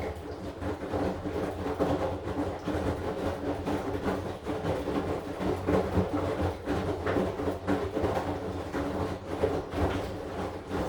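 AQUA AQW-DX12M drum washing machine turning its drum, the laundry and water tumbling and sloshing in irregular clatters over a steady motor hum.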